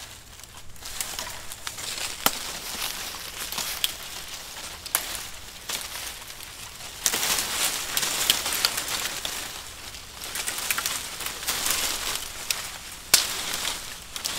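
Leaves and twigs rustling and crackling, with scattered sharp snaps, as a leafy branch is moved through the brush. The rustling is loudest from about seven to twelve seconds in.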